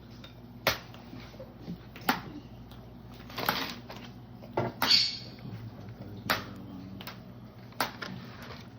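Irregular sharp clicks and knocks, about six spread over several seconds, with short rustling or scraping sounds between them.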